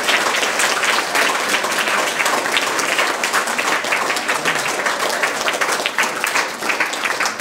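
A small crowd applauding, a dense patter of many hands clapping that starts to die down near the end.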